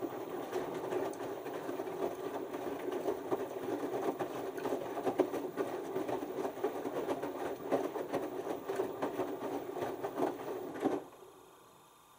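LG TurboWash 6 Motion front-loading washer's direct-drive drum turning during the first rinse: a steady motor hum with wet laundry tumbling and splashing inside the drum. It stops suddenly about eleven seconds in as the drum comes to rest.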